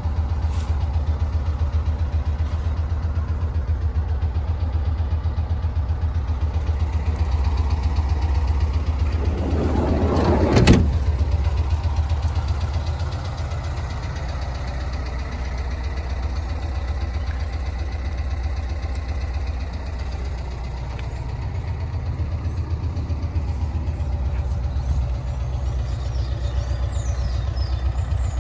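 A VW Kombi's recently rebuilt engine idling with a steady low pulsing rumble. About ten seconds in, a rising shuffle ends in one sharp knock, like a door being shut.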